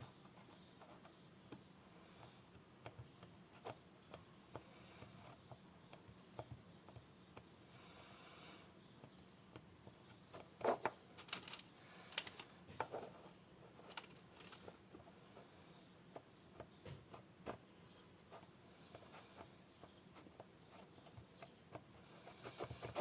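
Faint scattered clicks and light taps of hands handling small crafting materials and objects on a table while shaping white plasticine, with a few sharper knocks around the middle.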